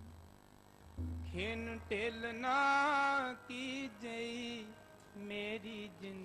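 Background devotional music: a voice chanting in drawn-out, wavering notes, beginning about a second in, with a low drone under the first phrase.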